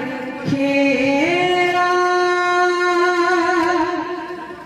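A woman's voice singing one long held note of an Odia kirtan devotional song. The note steps up in pitch about a second in, holds steady, and fades near the end.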